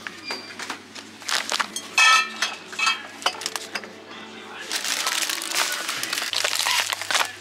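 Plastic shrink-wrap crinkling and rustling as a six-pack of small mineral-water bottles is handled and put into a shopping cart, with light knocks among the groceries. There is a short, loud, voice-like sound about two seconds in.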